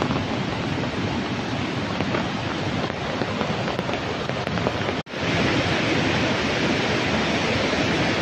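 Steady rushing roar of a river in flash flood, white water pouring over rocks. About five seconds in it cuts out for an instant, then comes back a little louder and hissier.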